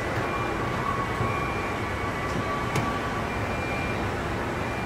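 Car assembly plant floor noise: a steady din with a thin high tone held for about the first three seconds and a single sharp click about three seconds in.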